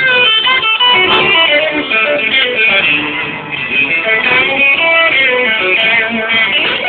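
Live blues-rock band playing an instrumental passage, led by an electric guitar playing runs of single notes with string bends.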